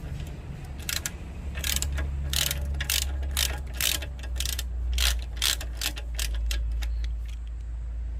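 Ratchet wrench clicking in irregular strokes, as during bolt work on a small petrol engine, over a steady low hum.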